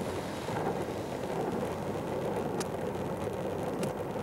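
Skateboard wheels rolling over asphalt, a steady rumble, with two sharp clicks, one a little past the middle and one near the end.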